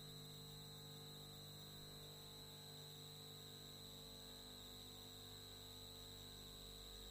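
Near silence: a faint steady electrical hum and hiss.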